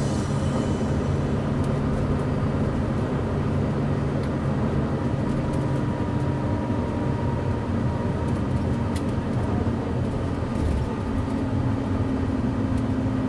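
Cummins ISL diesel engine of a 2011 Gillig Low Floor BRT city bus with an Allison B400R automatic transmission, running steadily as heard from on board, with a faint whine through the middle.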